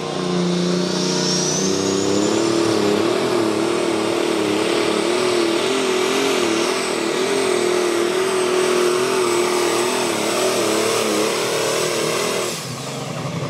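Ford 9710 pulling tractor's diesel engine revving up hard and held at high revs under full load while pulling the sled, its pitch wavering slightly, with a high whistle rising with it in the first couple of seconds. Near the end the sound drops to a lower, quieter engine note.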